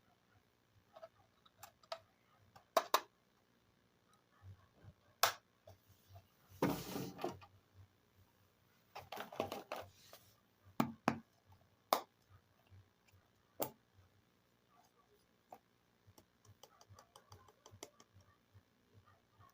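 Small hard plastic toy pieces being handled, with sharp clicks and taps as they are set down or fitted together, and two brief stretches of rustling about a third and half of the way through. Near the end there is a run of faint, quick ticks.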